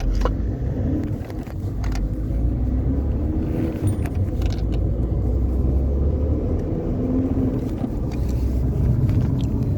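A car running, a steady low engine and road rumble with a few scattered clicks and knocks.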